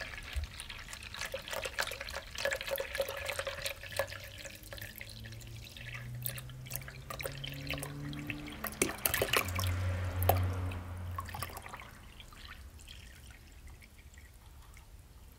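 Water poured from a plastic bottle into a small waterproofed GoBoard box, splashing and trickling into the water already collecting inside, with low tones that rise in pitch as it fills. The splashing fades down to a faint trickle about twelve seconds in.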